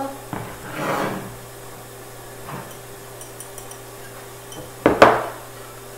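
Oat flour shaken from a small glass jar into a glass baking dish, a soft rustling pour about a second in, then two sharp knocks of glass on glass close together near the end.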